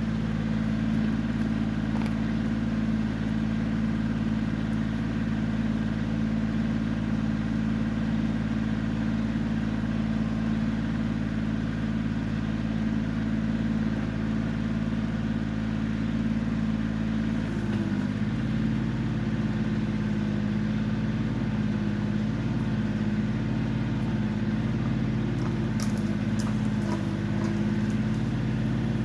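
Kioti CK20 compact tractor's three-cylinder diesel engine running steadily while working the backhoe, its note dipping briefly about two-thirds of the way through.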